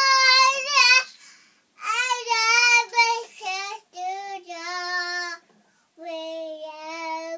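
A one-year-old boy singing wordlessly in long held vowel notes: one ending about a second in, several shorter notes after a pause, then a longer, lower note near the end.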